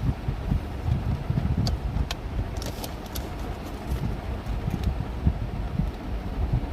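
Steady low rumbling background noise, like wind or traffic on the microphone, with a few light clicks about two to three seconds in.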